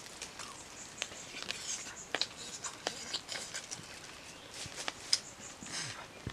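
Quiet, scattered small clicks and crackles of hands picking apart a charred whole grilled fish on banana leaves.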